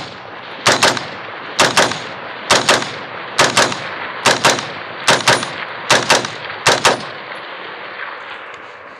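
AR-style semi-automatic rifle fired in doubles: eight pairs of shots, the two shots of each pair a split second apart and the pairs coming about once a second, each followed by a short echo. The firing stops about seven seconds in.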